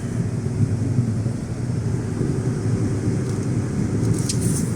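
Car driving on a snowy highway, heard from inside the cabin: a steady low rumble of engine and road noise, with a few faint, brief high ticks near the end.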